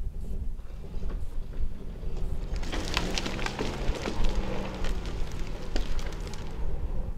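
Cut logs dragged by a cable across the ground and through slash: a burst of cracking and snapping of branches from about two and a half seconds in to about six seconds, over a low steady rumble.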